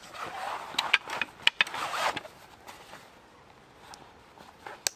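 Canvas tool sheath rustling and knocking as a wooden-handled tool is slid into it, with several sharp knocks in the first two seconds. A single sharp click near the end as the sheath's plastic buckle is clipped shut.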